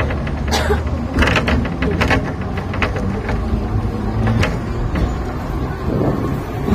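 Hong Kong double-decker tram running along its rails, heard from on board: a steady low rumble with frequent irregular clicks and rattles.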